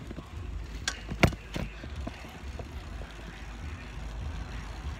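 Bicycle being ridden on pavement, heard as a low, steady rumble on a handheld phone's microphone, with three sharp clicks or rattles about a second in.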